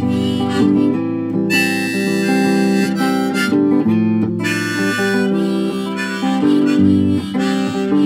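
Harmonica played in a neck rack, phrases of held notes over acoustic guitar accompaniment.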